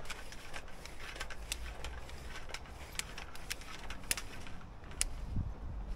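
Sewer inspection camera's push cable being pulled back out of the drain pipe, with irregular light clicks and ticks from the cable and its reel. A few low thuds near the end.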